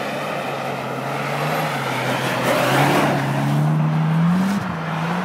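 Mitsubishi Lancer Evolution X's turbocharged four-cylinder engine pulling hard as the car drifts past on an ice track. The engine note rises steadily, and a rush of tyre noise is loudest as the car passes close, about three seconds in. The revs drop suddenly near the end.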